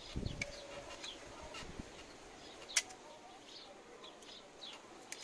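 Small birds chirping, short falling calls repeated through the whole stretch, over hands working dough in a metal bowl. A soft low thump comes just after the start, and a single sharp click about three seconds in is the loudest sound.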